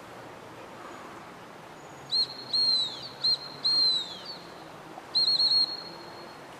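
Gundog whistle blown in a series of commands to a retriever: a short pip, a longer blast, another pip and a longer blast, each longer one dropping in pitch as it ends, then a quick run of three pips about a second later.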